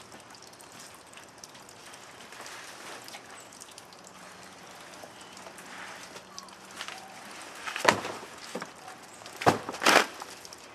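Items being handled during cleanup: a few sharp knocks and clatters, loudest about eight seconds in and twice more near the end, over faint background rustling.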